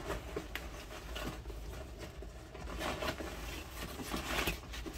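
A nylon rain cover rustling as it is pulled and stretched over a motorcycle tank bag by hand, with louder scrapes about three seconds in and again near the end.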